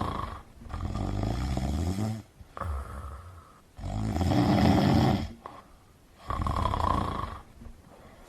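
A person snoring, with a snore about a second long on each breath, repeating every second or two.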